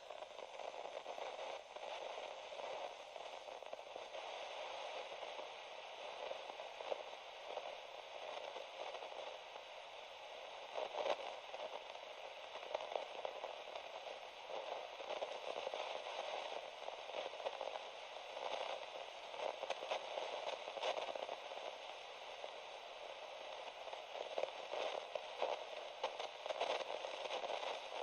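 Broken radio giving off static: a steady hiss with irregular crackles throughout.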